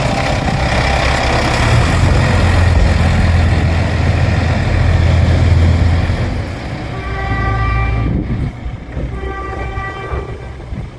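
JR Shikoku 2000 series diesel railcar passing close by with a loud rumble of engines and wheels that fades after about six seconds. As the rumble dies down, the level crossing's warning bell comes through, in two stretches with a short break between them.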